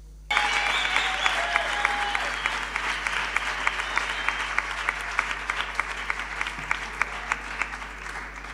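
Audience applauding with many quick hand claps, starting suddenly and slowly fading.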